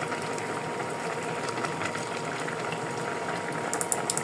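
Pot simmering on the stove: a steady bubbling hiss, with a few light, crisp clicks near the end.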